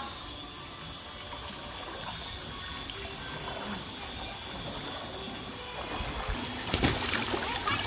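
Shallow spring-fed stream flowing and trickling over rocks, a steady water sound, with a brief knock and low thumps about seven seconds in.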